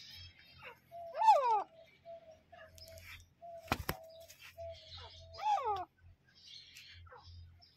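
Female grey francolin calling: two calls, each sliding down in pitch, about four seconds apart, with short steady notes in between. A single sharp click comes between the two calls.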